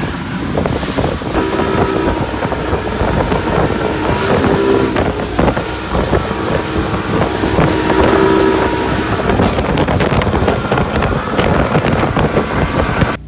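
Mercury outboard motorboat running at speed over choppy water: a steady engine drone under the hiss of spray and repeated slaps of the hull on the waves, with heavy wind buffeting on the microphone.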